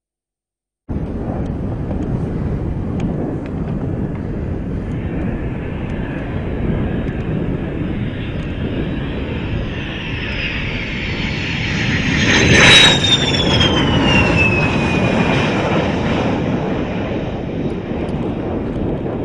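Military jet flying past: a steady rushing engine noise starts suddenly about a second in and builds to its loudest about 13 seconds in, while a high whine slides down in pitch as the jet passes.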